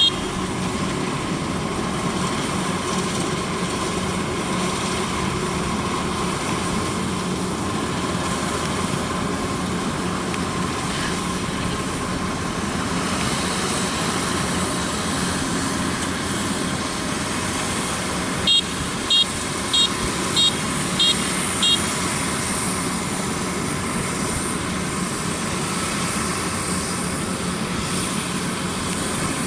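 Kubota DC-93 combine harvester's diesel engine and machinery running with a steady drone while cutting lodged rice. About two-thirds of the way in, six short, high beeps sound in quick succession.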